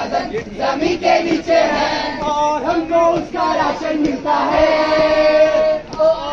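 A group of voices singing together in chorus, with one long note held a little past the middle.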